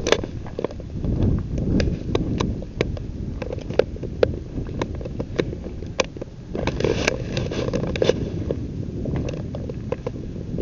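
Wind buffeting the microphone of an outdoor camera, a rough low rumble, with scattered sharp clicks and ticks through it.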